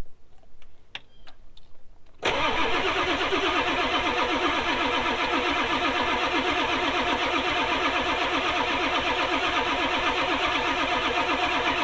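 Ford 7.3 Powerstroke diesel engine being cranked over by its starter from about two seconds in, with a steady, rapid, even rhythm.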